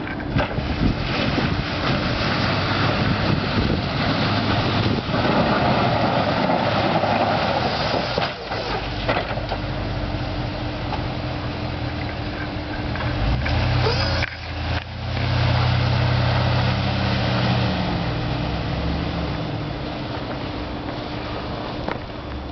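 Snow plow truck driving and pushing snow with its front blade, its engine running under a steady rushing noise. The engine is loudest about two-thirds through, as the truck passes close.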